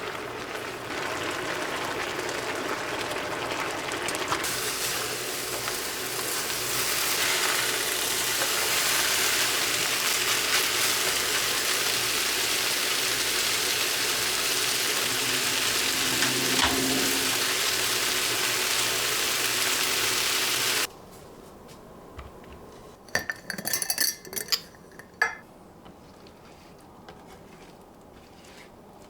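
Kitchen sounds: a steady hiss that stops suddenly about three-quarters of the way through, followed by a few light clinks of dishes or utensils.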